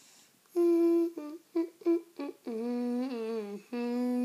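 A voice humming a short tune: one held note, a few quick short notes, then two longer, lower notes.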